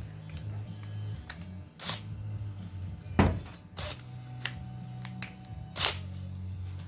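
Several sharp metallic clicks and knocks of hand tools being handled, the loudest about three seconds in, as a hole saw and its drill-bit arbor are fitted together.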